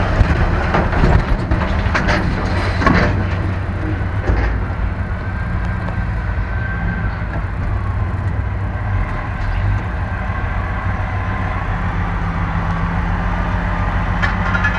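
Pickup truck engine running steadily at low speed, heard from inside the cab, with several sharp clanks and rattles in the first few seconds.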